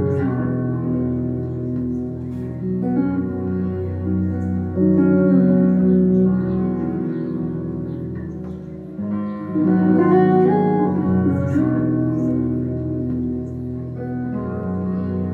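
Background music led by guitar, chords shifting with swells about five and nine seconds in.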